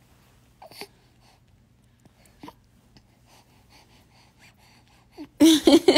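A few faint clicks and small knocks over a low steady hum, then about five seconds in a loud wailing cry starts, its pitch wavering up and down.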